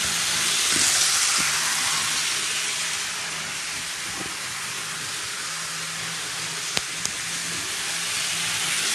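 Small model train locomotives, a Thomas the Tank Engine and an NYC 0-4-0T, running fast on the layout track: a steady whirring hiss of motors and wheels, loudest about a second in as Thomas passes close. Two sharp clicks come about seven seconds in.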